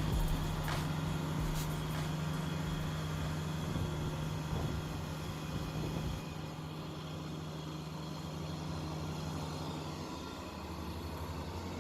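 Lawn mower engine running at a steady speed, with a few sharp clicks in the first two seconds. It grows a little quieter and duller after about six seconds.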